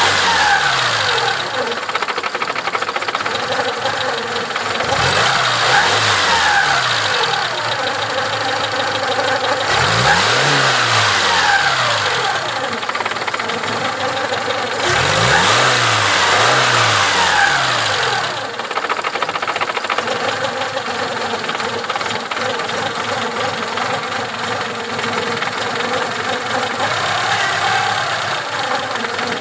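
ZAZ-1102 Tavria's four-cylinder petrol engine idling, with the throttle blipped about three times, each time the revs rising and falling back about five seconds apart, then settling back to idle.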